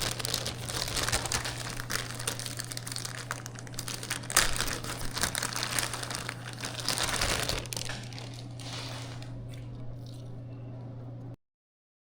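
Plastic packaging crinkling and rustling in irregular handling as hands rummage for a connector, over a steady low hum; the rustling thins out after about 8 seconds and everything cuts off abruptly near the end.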